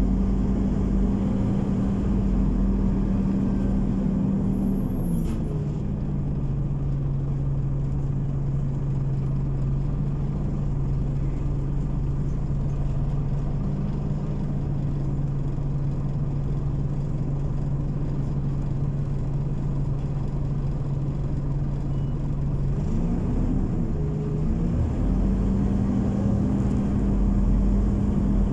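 Scania OmniCity city bus's diesel engine and drivetrain heard from inside the cabin, a steady low hum. Its pitch drops about five seconds in, holds steady for a long stretch, then climbs again near the end as the bus picks up speed. A brief high squeak comes just as the pitch drops.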